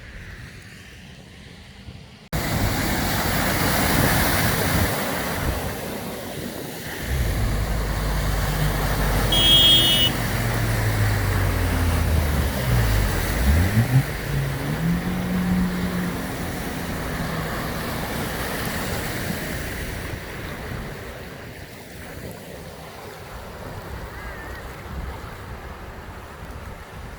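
Floodwater splashing and rushing as a motor vehicle drives through the flooded street. Its engine hum comes in about a quarter of the way through, drops in pitch and then rises again around the middle, and fades into the water noise.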